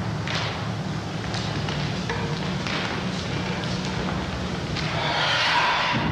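Steady low hum and hiss of an old film soundtrack, with a few faint ticks and a louder rushing noise about five seconds in.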